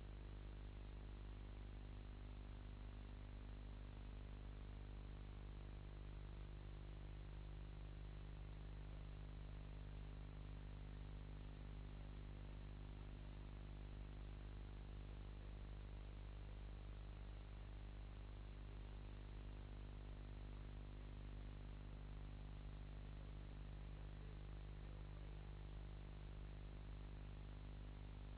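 Steady, unchanging low electrical hum with hiss and a faint high whine, with no other sound.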